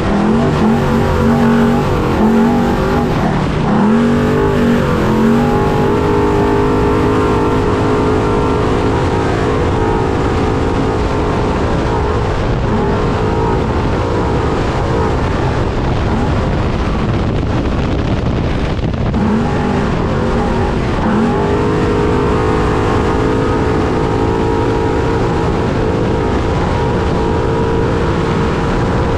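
Trophy truck engine heard from onboard at race pace, its pitch rising and falling over and over with the throttle, over a steady, dense noise of the truck running.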